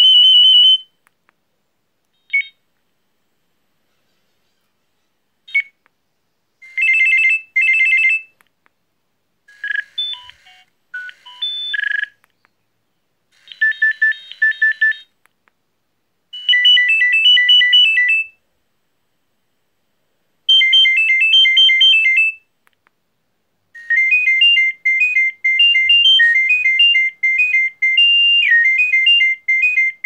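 Nokia 3510i's built-in ringtones previewing through its small speaker one after another. Each short, high-pitched melody cuts off after a second or two, with silent gaps between them. Near the end one tune plays on without a break.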